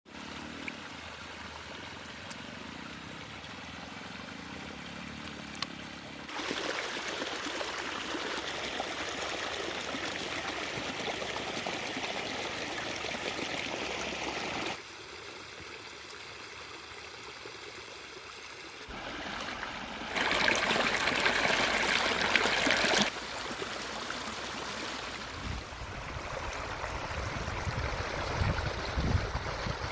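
River water flowing and trickling. It changes in loudness abruptly several times, louder from about 6 s to 15 s and again around 20 to 23 s, with a low rumble added near the end.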